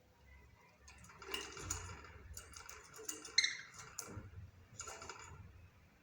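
Budgerigar chattering: a run of quick clicks and short chirps from about a second in until near the end, with one sharp, louder chirp in the middle.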